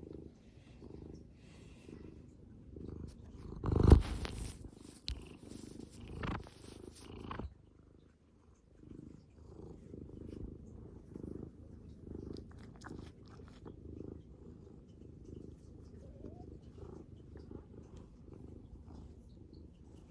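Domestic cat purring, a low rumble in even pulses somewhat more than one a second. About four seconds in there is a loud thump, then a few seconds of rustling.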